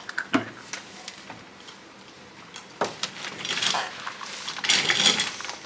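Metal clinks and knocks with a few short bursts of scraping, from tools and steel suspension parts being handled while urethane bushings are pressed into a control arm.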